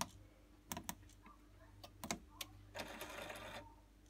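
Clicks of a finger pressing the push buttons on a Vaillant ecoTEC boiler's control panel, several in the first two and a half seconds, over a faint steady low hum. A brief hiss follows about three seconds in.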